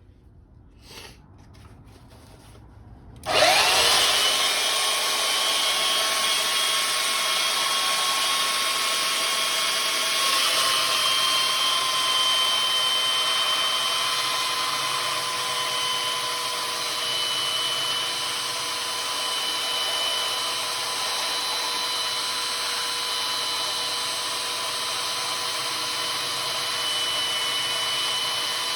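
An electric abrasive tool switches on about three seconds in and runs steadily, grinding down the steel edge of a splitting maul to take out a deep nick.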